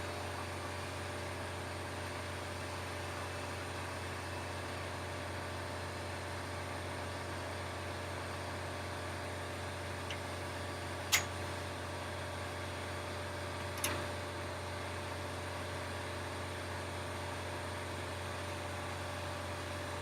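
A steady mechanical hum from a machine running at constant speed, with two sharp clicks about three seconds apart near the middle.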